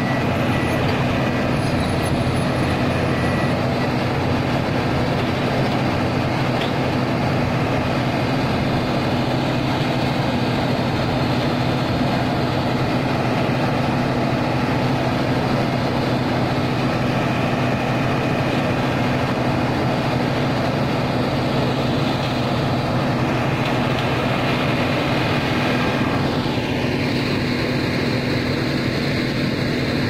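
Hino concrete mixer truck's diesel engine running steadily at a constant speed, driving the turning drum while it is loaded with concrete from the plant hopper.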